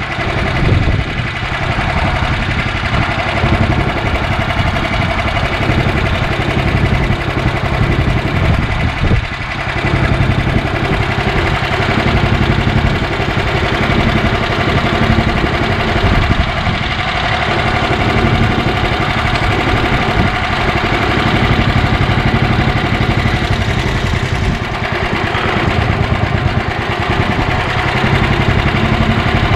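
Honda GX340 single-cylinder engine in a utility golf cart running steadily.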